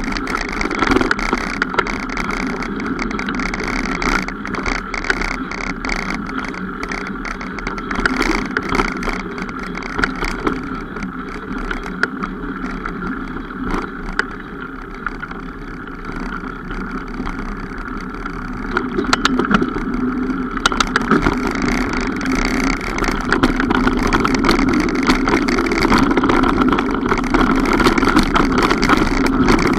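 Mountain bike on a trail: continuous rolling noise with many small knocks and rattles, quieter for a while mid-way and louder again for the last third.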